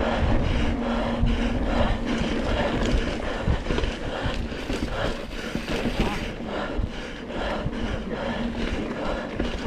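A mountain-bike racer panting hard, about two breaths a second, over a strong low rumble of wind and jolts on the microphone.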